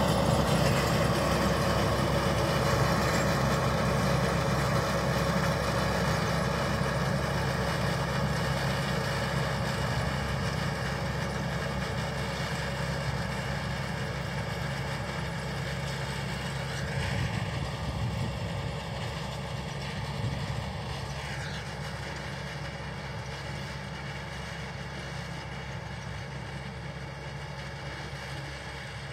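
Farm tractor's diesel engine running steadily under load as it pulls a rear-mounted soil implement, slowly fading as the tractor moves away.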